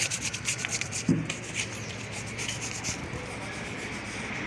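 Rapid close rubbing and rustling, about eight quick scratches a second, stopping about three seconds in, with a brief voice sound about a second in.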